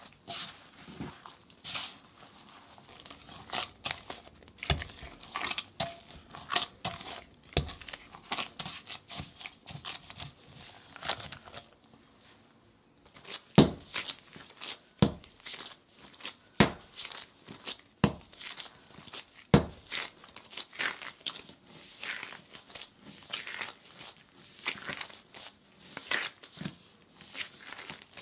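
Bagel dough being worked by hand in disposable gloves, first in a ceramic bowl and then on a wooden table: a run of sticky squelching, tearing and crinkling sounds from the dough and gloves. Midway come five heavy thumps about a second and a half apart as the dough mass hits the table, then the soft crinkling of kneading resumes.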